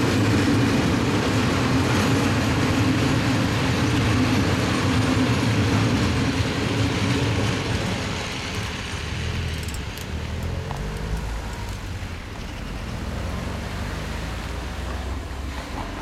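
Freight train of coal-loaded Eaos open wagons rolling past, a steady rumble of wheels on the rails that fades after about eight seconds as the last wagons go by. After that, the quieter running of car engines as road traffic moves off over the level crossing.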